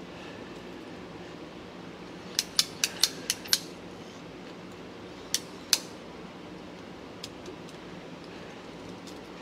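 Ratcheting PVC pipe cutters clicking as they are squeezed through a PVC pipe: a quick run of about six sharp clicks, then two more a couple of seconds later and a couple of faint ones after that. A steady low hum runs underneath.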